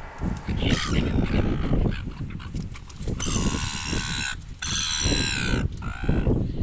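Birds squawking to be fed: a short harsh call about a second in, then two long loud calls in the middle, over a steady low rumble.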